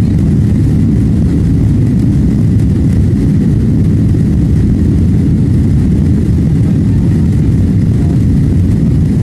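Steady low rumble of engine and airflow noise inside the cabin of a Boeing 777 climbing out just after takeoff, with a faint steady high tone above it.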